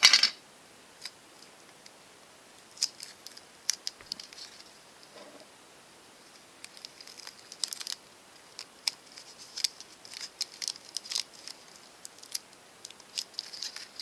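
Paper and sticky tape handled by hand: a short rustling burst at the start, then scattered small crinkles and clicks as the tape is pressed down over the paper-clip nose of a folded paper airplane.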